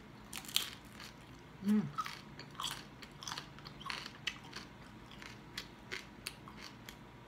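Crispy deep-fried pork hock skin (lechon kawali crackling) crunching as it is bitten and chewed, a quick run of sharp, irregular crackles.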